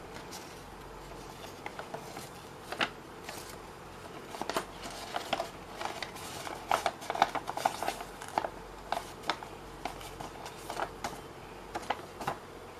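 Folded white paper boxes being handled and fitted together on a wooden tabletop: irregular crisp paper rustles and light taps, thickest in the middle stretch.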